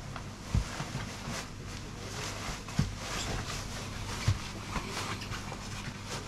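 Fabric of a winter suit rustling, with three soft low thumps, as a man pulls boots on over the suit legs. A faint steady hum runs underneath.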